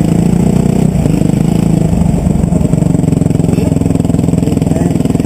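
Motocross bike engine running steadily at a fairly even pitch, heard from on board the bike as it rides along the dirt track.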